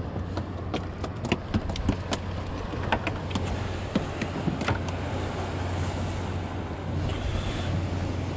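A small leatherjacket flopping on a fiberglass boat deck as it is grabbed at, making scattered light slaps and knocks, over a steady low hum.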